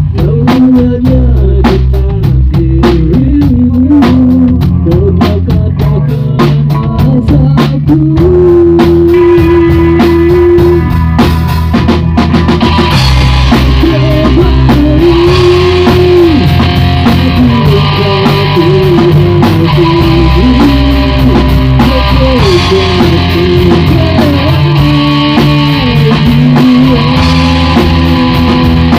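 Rock band playing: electric guitars over a Pearl drum kit, with a held, bending guitar melody on top. The cymbals come in heavier about thirteen seconds in.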